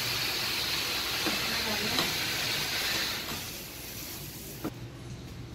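Water spraying from a pet-wash hose sprayer onto a dog, a steady hiss that stops about three seconds in. A single click follows near the end.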